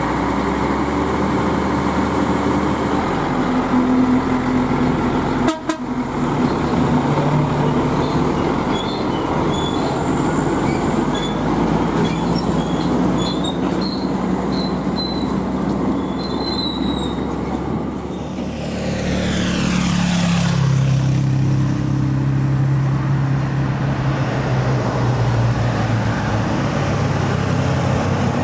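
Heavy Scania diesel truck engines running as the trucks work and move off with loaded trailers, with brief high squeaks in the middle and a sweeping pass-by sound about two-thirds of the way through.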